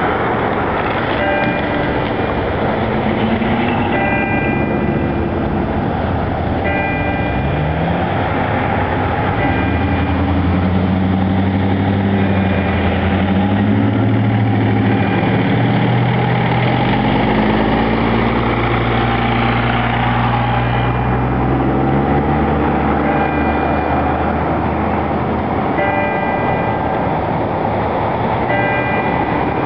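Church bell tolling slowly, one stroke about every three seconds, over steady traffic noise. A motor vehicle's engine swells and fades past in the middle, covering the bell for a while.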